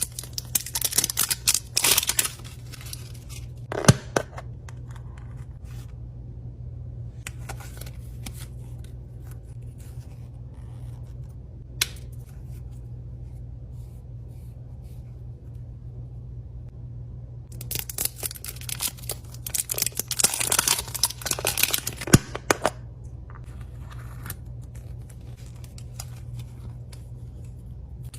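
Toy packaging being handled and torn open, in bouts of crinkling and tearing with a few sharp clicks, over a steady low hum.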